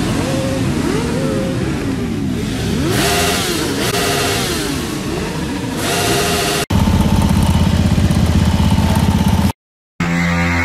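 Several sport motorcycle engines revving, their notes overlapping and repeatedly rising and falling in pitch. About six and a half seconds in it changes abruptly to a louder, steady fast-pulsing engine note that cuts off suddenly near the end.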